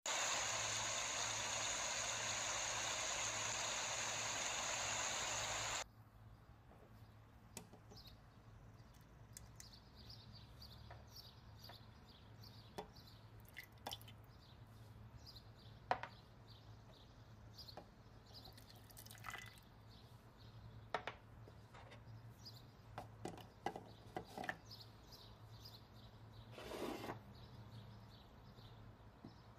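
A small stream rushing over rocks, a steady loud splashing that cuts off suddenly about six seconds in. Then faint kitchen sounds over a low hum: scattered light clicks and taps as ingredients go into a plastic food processor jug, and a soft pour lasting about a second near the end.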